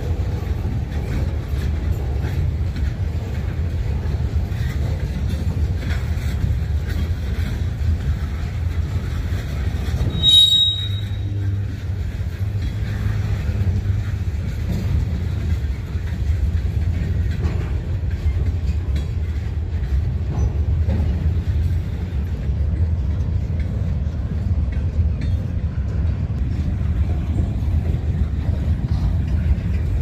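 A train rolling by with a steady low rumble of wheels and cars. About ten seconds in there is one brief, high-pitched squeal.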